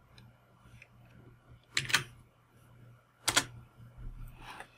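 Faint, sharp clicks of a computer mouse and keyboard as text is pasted. There are two close pairs about a second and a half apart, then softer clicking near the end.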